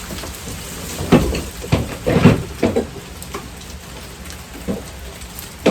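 Hand file rasping in several short, irregular strokes over a metal part, scraping off paint that is keeping it from fitting.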